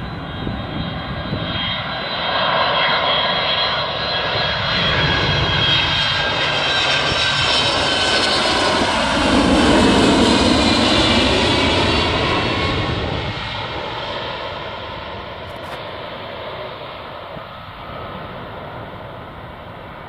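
Delta Boeing 767's twin jet engines on landing approach, passing low overhead. A whining, rumbling jet noise grows louder, peaks about halfway through with the whine sliding in pitch, then fades as the airliner moves away.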